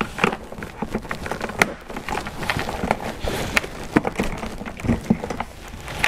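Small screwdriver working a stubborn plastic retaining clip on a car door panel's window switch and handle assembly: irregular plastic clicks, taps and scrapes as the clip is pressed in and the assembly is worked loose.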